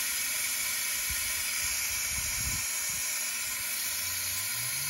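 Steady hiss of compressed air rushing through a venturi vacuum coolant refill tool as it pulls a vacuum on the engine's cooling system.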